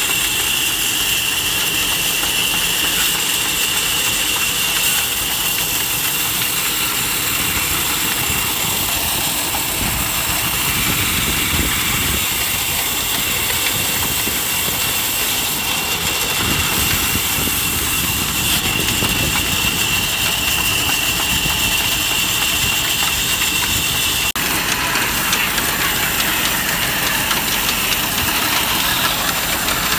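Engine-driven band saw running steadily while a log is fed through the blade, the engine's drone under a steady high whine. The whine drops out about 24 seconds in, leaving the engine and the flat drive belt turning the pulley.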